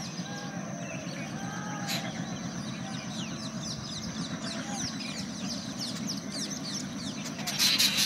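Diesel locomotive approaching with its engine giving a steady low rumble, while birds chirp rapidly in short falling notes over it. A short, loud hiss rises near the end.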